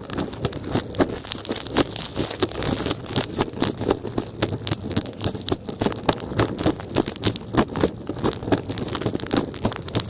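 Kick scooter rolling over pavement, its wheels giving a steady rattle of dense, irregular clicks and crackles.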